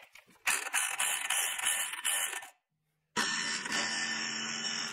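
Corded electric impact wrench hammering on the mower blade's centre bolt, run counterclockwise to loosen it. It comes in two bursts with a short break near the middle.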